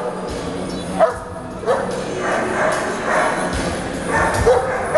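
Dogs barking in short, sharp yelps, about a second in, again shortly after, and once more past four seconds, over the steady chatter of a crowd.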